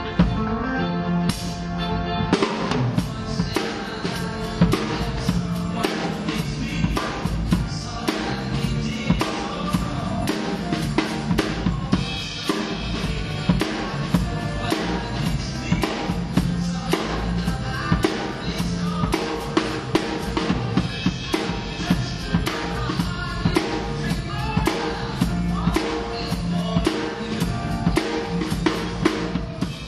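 Drum kit played in a steady groove, with bass drum, snare and cymbal strokes over recorded accompanying music. The drumming comes in fully about two seconds in and starts to fade out at the very end.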